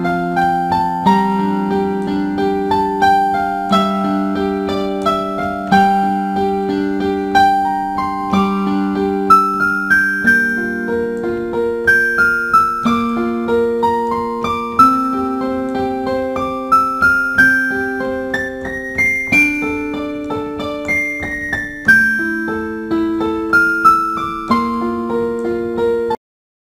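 Background music: a solo piano piece, a melody of struck notes over held lower chords, which cuts off suddenly near the end.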